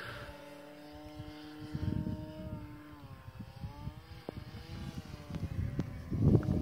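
Electric motor and propeller of an RC aerobatic plane whining in flight, the pitch steady at first, then wavering and bending about three seconds in. Low gusts of wind buffet the microphone, loudest near the end.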